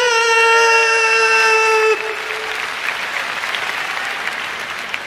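A ring announcer's drawn-out call, the last syllable of a wrestler's name held on one pitch for about two seconds and cut off, followed by audience applause.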